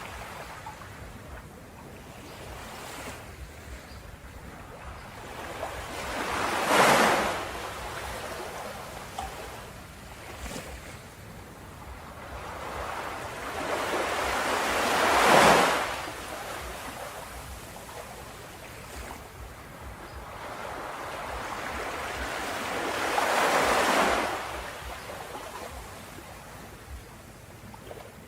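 Ocean waves breaking on a shore: three waves build and crash about eight or nine seconds apart, with the wash of surf between them.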